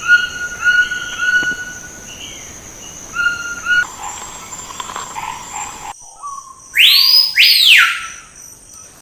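A bird's whistled calls: a series of short, clear whistled notes repeated every half second or so. Later come two loud whistles that sweep up steeply and fall back.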